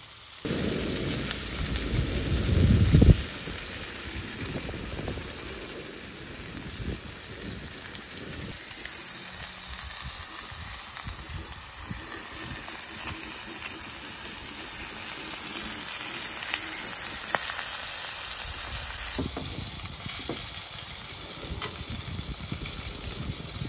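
Ribeye steak frying in hot bacon grease in a cast-iron skillet: a steady sizzle, with a low rumble over it for the first three seconds. About 19 seconds in it cuts to another skillet of food frying.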